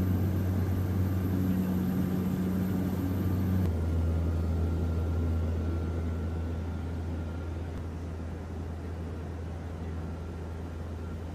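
Steady low drone of a CASA CN-235's twin General Electric CT7 turboprop engines and propellers, heard from inside the aircraft in flight. The drone changes abruptly about four seconds in, then runs on slightly quieter.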